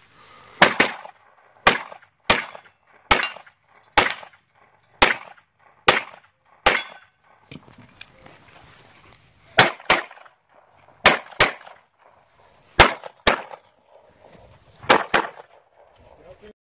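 Pistol fired repeatedly at close range: about seventeen sharp shots, at first one roughly every second, then in quick pairs (double taps) in the second half.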